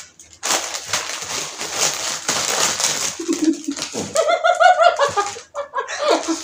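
Foil chip packets crinkling and rustling as they are bitten and pressed against the tabletop. From about three seconds in, a muffled, pitched humming voice comes from someone straining with their face on a packet, loudest about a second later.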